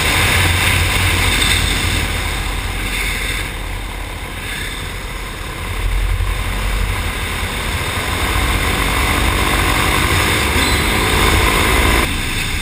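Paramotor engine and propeller running steadily in flight, mixed with wind rush over the microphone. The sound changes abruptly near the end, the higher part dropping away.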